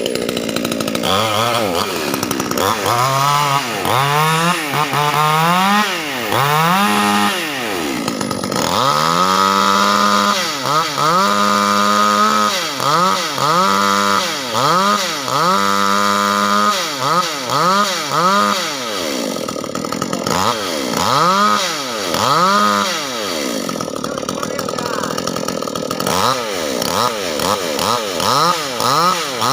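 Proquip mini chainsaw running under load while cutting lengthwise through a large wooden beam. Its pitch rises and falls over and over, about once a second, as the throttle is opened and eased.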